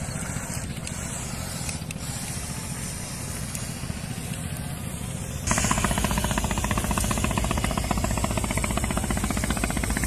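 Remote-control speed boats' small electric motors and propellers buzzing on the water. About halfway through the sound jumps louder to a close, fast-pulsing buzz as the white boat runs near.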